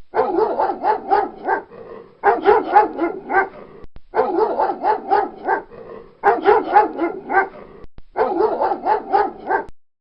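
A dog barking rapidly, about five or six barks a second, in five runs broken by short pauses.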